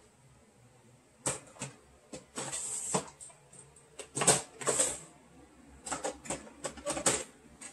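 Clear plastic storage drawers being pulled out and pushed back, and makeup containers knocking together as they are rummaged through: an irregular run of clicks, clacks and short rustles.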